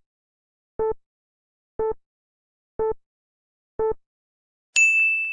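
Quiz countdown-timer sound effect: four short beeps, one a second, then a bright ding that rings on near the end, signalling time is up.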